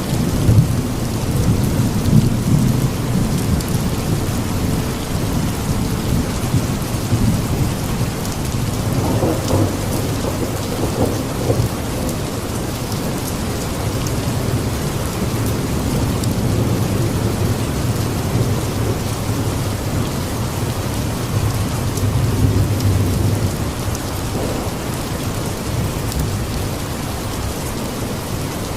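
Steady heavy rain with rolling thunder, deep rumbles swelling and fading several times.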